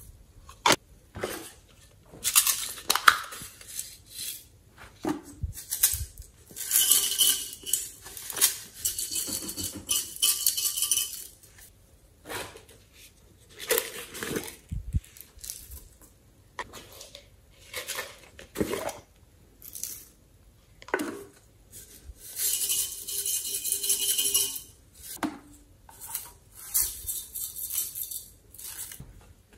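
Glitter and sequins shaken out of small plastic containers into a glass dish of slime, rattling and pattering in bursts of a second or more, between clicks and taps of the plastic containers.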